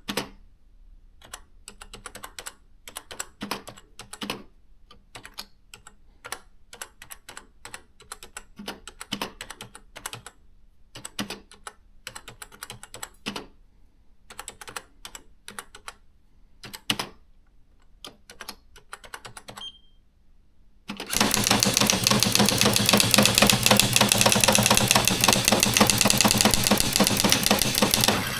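Olivetti ET Compact 60 electronic daisywheel typewriter printing. Single keystrokes are struck at an uneven typing pace, with a short beep about 20 seconds in. Then comes a fast, even, much louder run of print strikes lasting about seven seconds, the machine printing on its own.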